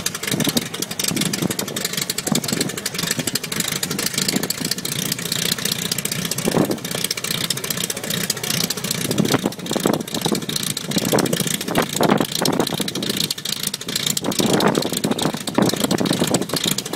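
Engine of a WWI Albatros D.Va biplane running on the ground, uneven, with irregular surges in loudness every second or so.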